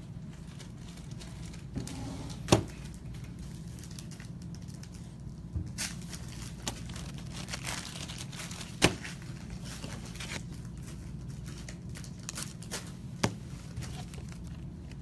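Trading cards being handled and put away in plastic sleeves and top loaders: light crinkling of plastic and wrappers, with a few sharp clicks and taps.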